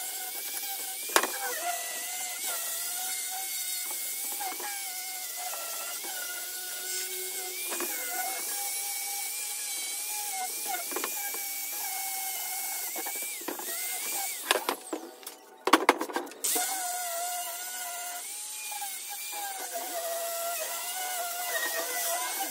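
Small handheld electric grinder with a sanding disc running against a welded steel hollow-section frame, its whine dipping and rising as it is pressed and moved along the metal. About 14 to 16 seconds in the whine breaks off, with a few sharp knocks, then starts again.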